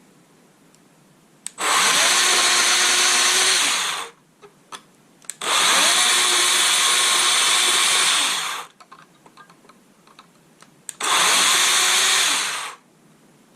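Power tool grinding down the sides of 1/0-gauge copper cable lug terminals so they fit the factory terminals. It runs in three spells of a few seconds each, spinning up at the start of each and winding down at the end.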